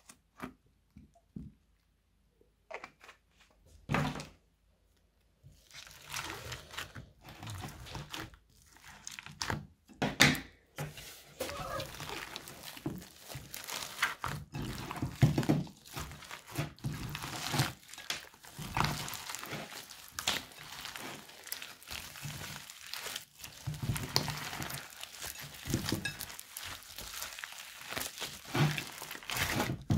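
Hands kneading and mixing slime, clay and foam beads in a glass bowl: a dense, continuous crackling and crunching with soft squelches and thuds. It starts about five seconds in, after a few small clicks and a knock as a plastic bottle of glycerin is opened.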